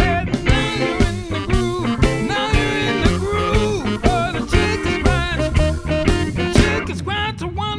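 A band plays a bluesy groove on electric guitars, electric bass and a drum kit. Over it runs a lead line that bends up and down in pitch.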